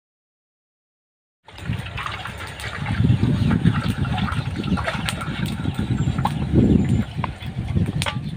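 Dead silence for about a second and a half, then gusting wind rumbling on the microphone outdoors, with a few faint clicks.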